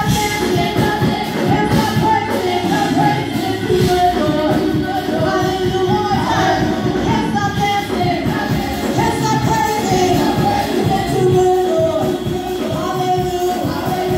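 Gospel praise team singing live into microphones, with instrumental accompaniment, amplified through loudspeakers.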